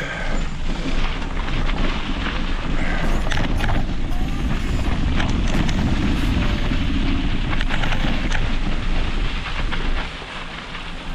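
A mountain bike riding over a gravel singletrack, heard from a camera on the bike or rider. Wind buffets the microphone, the tyres crunch over the gravel, and the bike rattles and clicks over the bumps. The noise eases a little near the end.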